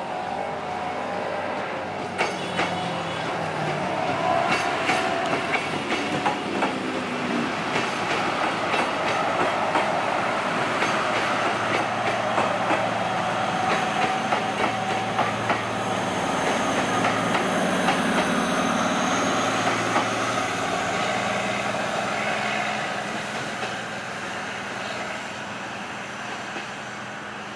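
Prambanan Ekspres diesel multiple unit passing close by: a steady engine drone under wheels clicking over the rail joints. It grows louder as the train nears, stays loudest through the middle, then fades near the end as it moves away.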